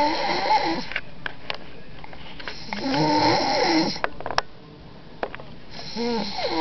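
Snoring: three long snores about three seconds apart, each with a wavering pitched drone under a noisy rasp, and a few faint clicks between them.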